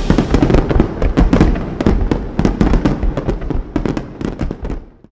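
Fireworks crackling and popping: a rapid run of sharp cracks over a low rumble, thinning out and fading away near the end.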